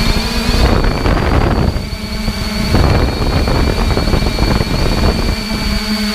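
Electric motor and propellers of a radio-controlled FPV aircraft running with a steady whine. From about a second in until near the end the whine gives way to a rough wind rush on the microphone, then comes back.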